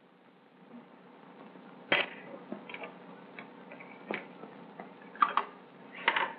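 A handful of light clicks and knocks from small objects being handled on a laboratory bench, the sharpest about two seconds in, over the faint steady hiss of an old film soundtrack that fades in near the start.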